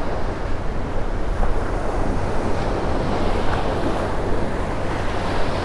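Small ocean waves breaking at the shore and washing up the sand in a steady hiss, with wind rumbling on the microphone.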